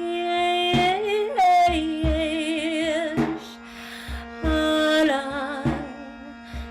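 A slow devotional chant sung in long, held notes with a wavering vibrato, over a steady drone and a soft, low drum beat about once a second.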